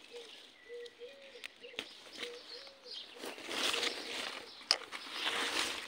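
A dove cooing, a string of short low notes repeated for the first few seconds. Then, from about three seconds in and louder, strawberry leaves rustle and crackle as a hand pushes through the plants close to the microphone.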